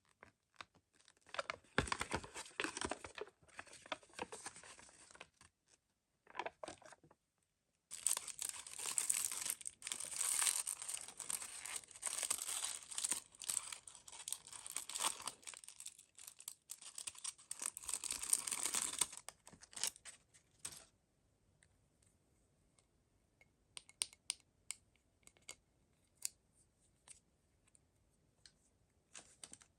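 Toy packaging being torn open and crinkled by hand, in two long stretches of crackling, then a few light clicks and taps.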